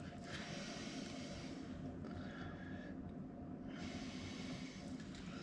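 A man breathing loudly through his nose close to the microphone, in long breaths of one to two seconds each, over a low steady hum.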